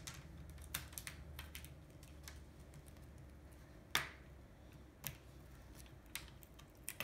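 Plastic screen bezel of an HP Envy laptop being pried off with a plastic pry tool: scattered clicks and snaps as the bezel's clips let go. The loudest snap comes about four seconds in.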